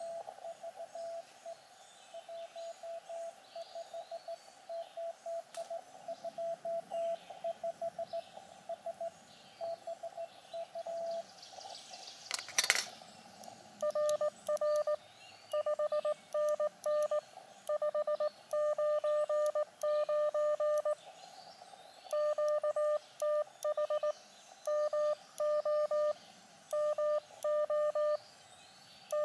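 Morse code (CW) tones from an Elecraft KX2 transceiver. First comes a fainter received signal from the other station, then a sharp knock about halfway through, then the operator's own keyed reply as a louder, steady-pitched sidetone in bursts of dits and dahs. Birds chirp faintly in the background.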